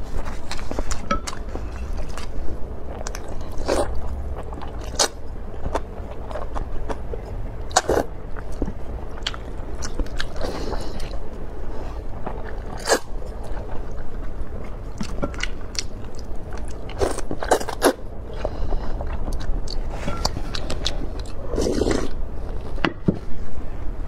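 Close-miked eating sounds: chewing and biting, with slurps of hot and sour noodles and short sharp clicks scattered throughout, over a steady low hum.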